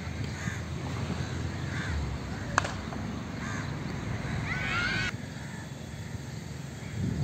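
Birds calling repeatedly in short, bending calls, with a single sharp crack about two and a half seconds in: a cricket bat striking the ball.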